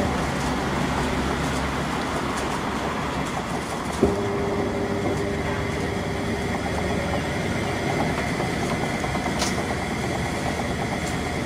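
Samsung top-loading washing machine in its drain and spin-dry cycle, the motor and belt turning the tub with a steady, soft, normal running sound and no squeak. A click about four seconds in.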